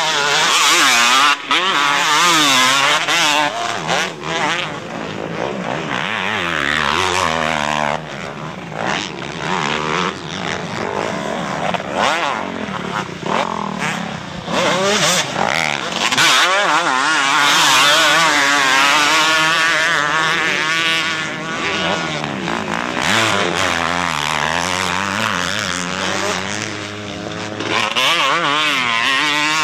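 Motocross bike engines revving hard and backing off as they are ridden round a dirt track, the pitch climbing and dropping again and again through the gears and over jumps.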